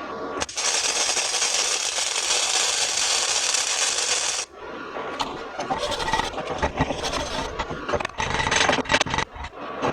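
Flux-core arc welding with a Century FC-90 wire-feed welder: a steady, dense crackling sizzle of the arc for about four seconds that cuts off abruptly. It is followed by irregular short crackles and scrapes with gaps between them.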